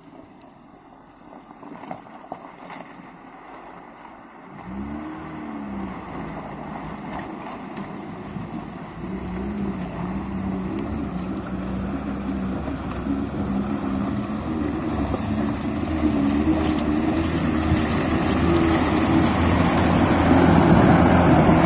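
Niva 4x4 engine revving and pulling as the car drives through a shallow river breaking thin ice. It is faint at first, swells in pitch about five seconds in, then grows steadily louder as the car comes closer, with a rising hiss of water and broken ice.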